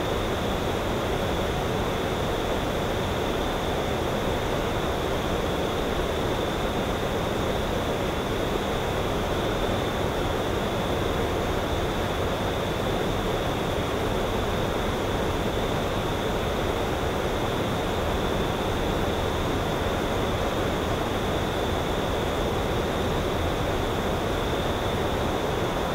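Steady outdoor evening ambience by a lake: an even, unbroken hiss with a constant high-pitched band and no distinct events.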